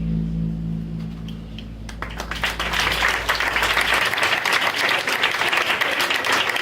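The song's final chord rings on and fades, and about two seconds in a small audience breaks into applause, dense clapping that carries on while the low notes die out.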